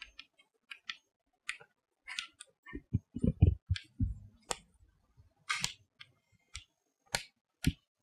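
Chalk writing on a chalkboard: irregular taps and short scratches of the chalk stroke by stroke, a few with a dull knock against the board near the middle.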